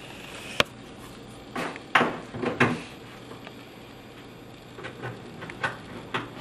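Sharp clicks and knocks from a cabinet corner bracket being handled and pressed into a corner of the cabinet box. There is a single click, then a cluster of louder knocks, then a few lighter taps near the end.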